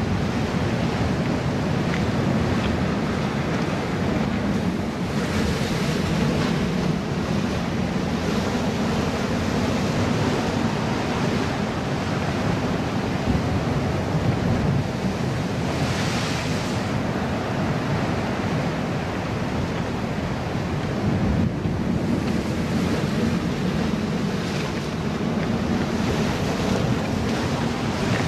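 Ocean surf breaking and washing over a rocky breakwall, with wind rumbling on the microphone. A louder hissing surge of water comes about halfway through.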